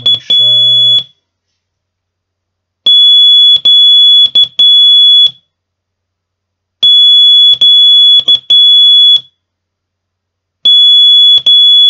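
Morse code sent slowly by hand on a telegraph key through a high-pitched practice oscillator: the letter Щ (dah-dah-di-dah) keyed three times, about four seconds apart. The end of an earlier Щ sounds at the very start, with a voice chanting the mnemonic over it.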